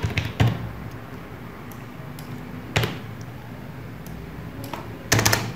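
Computer mouse clicking: a quick few clicks at the start, a single click a little before halfway, and another quick run of clicks near the end.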